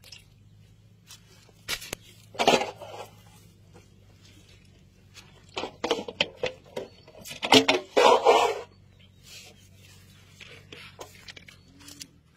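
Fishing net rustling and scraping as it is handled to pick fish out of the mesh, in a few short bursts of about a second each.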